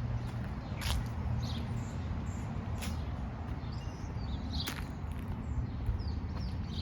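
Outdoor ambience: a steady low rumble of highway traffic under scattered small bird chirps, with a few sharp clicks, about a second, three seconds and nearly five seconds in.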